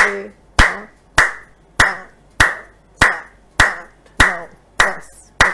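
A person clapping full palm to palm in a steady, even rhythm for acupressure: about ten sharp claps, a little over half a second apart.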